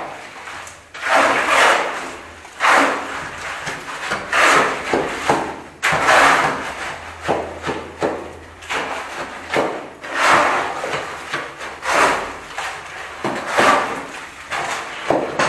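Shovels scraping through and turning a pile of hand-mixed concrete on the floor, in repeated rough scrapes about every second and a half.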